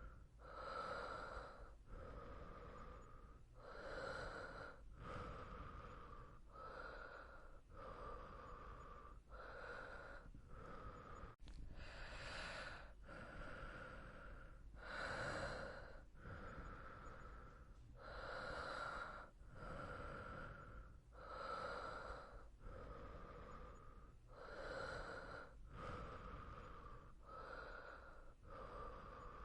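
A person breathing in and out in a steady, even rhythm, each breath lasting about a second and a half.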